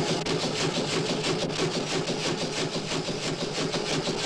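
Foden showman's steam traction engine, built 1910, running along the road with a steady, fast, even rhythmic beat.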